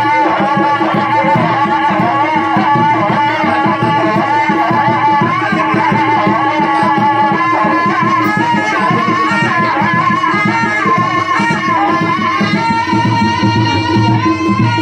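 Traditional Indian festival music: rapid hand-drum beats under a wavering high melody over a steady drone. The drums grow louder near the end.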